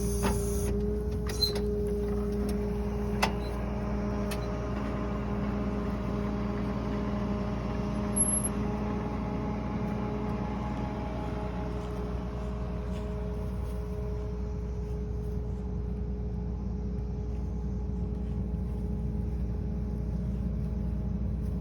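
Tractor engine running steadily at an even pitch during hay baling, with a few sharp clicks in the first few seconds and another about eight seconds in.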